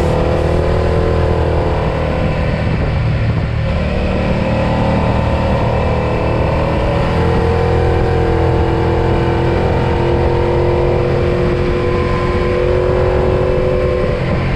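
Suzuki SV650S 90-degree V-twin running through an aftermarket Ixil exhaust, its pitch rising and falling gently with the throttle.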